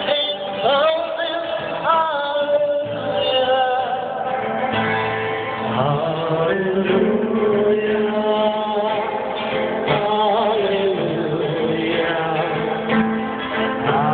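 A man singing a slow melody to his own strummed acoustic guitar.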